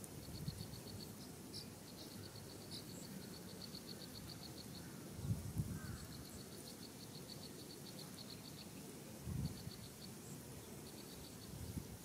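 An insect chirping in runs of rapid, evenly spaced high pulses with short pauses between runs, over a low rumble. Two short low thumps come about halfway through and again near the end.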